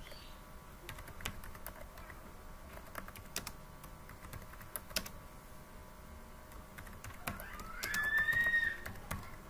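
Typing on a computer keyboard: irregular key clicks. Near the end, a louder high tone glides up and then holds for about a second.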